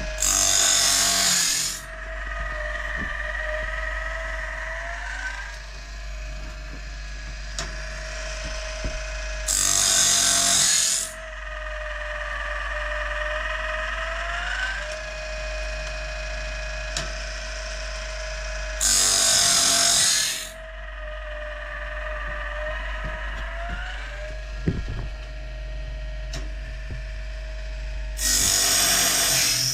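Sawmill machinery running with a whine that wavers in pitch, broken four times by a short, loud, harsh burst about every nine seconds.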